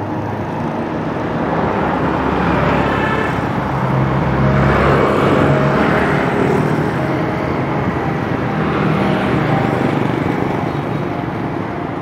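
Road traffic: motor vehicles passing close by on the street. The noise swells to a peak about four to six seconds in and again around nine seconds.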